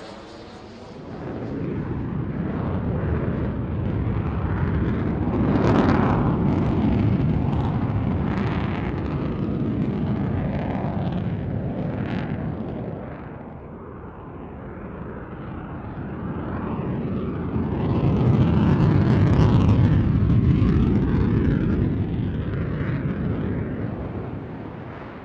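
FA-18 Hornet jet fighters' twin turbofan engines rumbling as they maneuver and pass in the distance. The roar swells to a peak about six seconds in, eases off, and swells again around twenty seconds. A whistling tone from a previous pass fades out in the first second.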